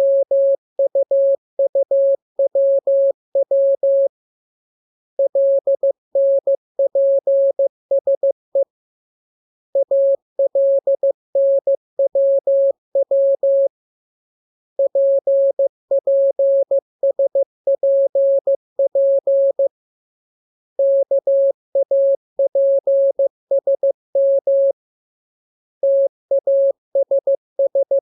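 Morse code practice signal: a single steady beep keyed on and off in dots and dashes, sent as groups of letters with pauses of about a second between groups. The groups are drawn from the letters K, M, U, R, E, S, N, A, P, T, L and W.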